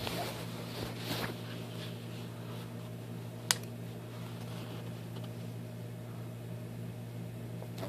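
Steady low mechanical hum, with a single sharp click about three and a half seconds in and some handling rustle in the first second.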